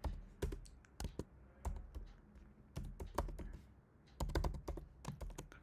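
Typing on a computer keyboard: irregular runs of key clicks, with a short pause a little after the middle followed by a quick burst of keystrokes.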